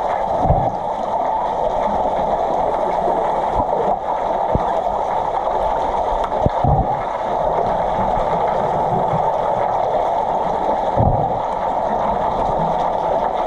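Muffled underwater noise picked up by a submerged camera: a steady even hiss, broken by a few dull low thumps.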